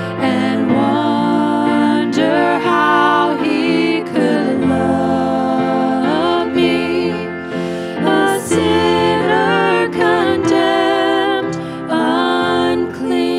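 Two women singing a worship song into microphones over a sustained instrumental accompaniment with steady held low notes.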